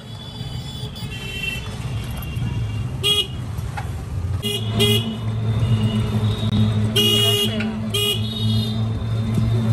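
Vehicle horns tooting in short blasts over street traffic, five or so times, the longest about seven seconds in. A steady low engine hum sets in about halfway through.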